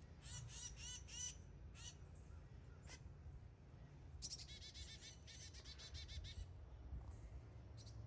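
A small songbird calling: a few sharp, high notes in the first second and a half, then a fast chattering run of notes from about four to six and a half seconds in, over a steady low rumble.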